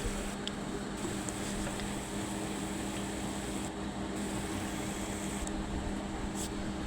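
Banana pitha batter frying in oil on low heat: a gentle, steady sizzle under a steady low hum.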